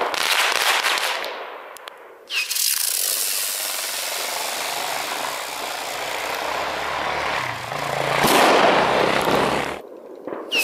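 Rushing hiss of small handmade titanium butterfly fireworks burning. The first fades within about a second and a half. After a short gap, a second one starts suddenly and hisses for about seven seconds, growing louder near the end before cutting off.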